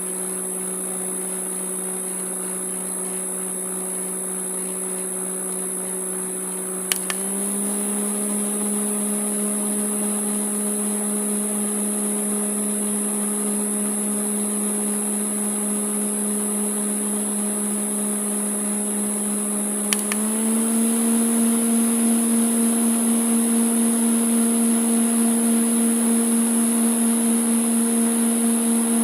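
Electric fan motor humming steadily. About 7 seconds in and again about 20 seconds in there is a click, and each time the hum steps up in pitch and gets louder, as when the fan is switched to a higher speed.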